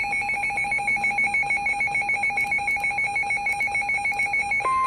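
Electronic weather alert tone warbling rapidly between two pitches, like a phone ringer. Near the end it switches to a single steady tone of about 1 kHz, the start of the weather radio's warning alarm tone.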